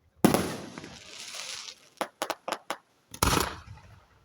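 Fireworks shells bursting in the air: a loud boom with a crackling tail, then a quick run of about six sharp pops, then another loud boom.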